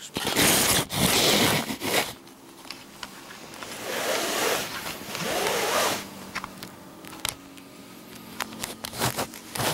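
Rustling and scraping of a heavy coat as it is adjusted by hand, with a zipper being worked. A louder burst of rustle comes early, and scattered small clicks follow later on.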